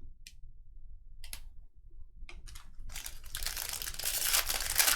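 Trading card packaging being unwrapped: crinkling and tearing of the wrapper, a few short rustles at first, then steady crinkling from about three seconds in.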